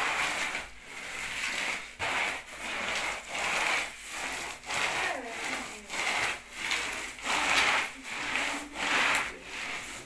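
A floor carpet being scrubbed in steady back-and-forth strokes, about one and a half strokes a second, each a rough scraping rub.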